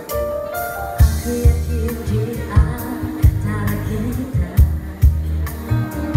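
A female vocalist sings into a microphone over live Yamaha keyboard accompaniment, played through PA loudspeakers. A bass-and-drum beat with heavy low thumps, about two a second, comes in about a second in.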